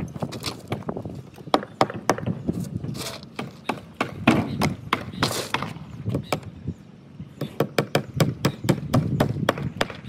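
Hammer striking steel nails in a wooden formwork edge board: a rapid run of sharp knocks with a short lull about seven seconds in.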